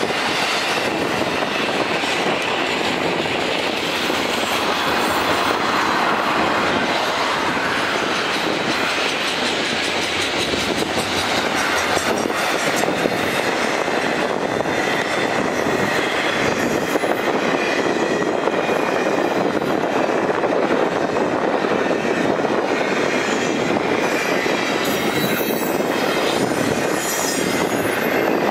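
Double-stack intermodal container cars of a freight train rolling past: a steady rush of steel wheels on rail, with a thin high wheel squeal and some clicking over the rails.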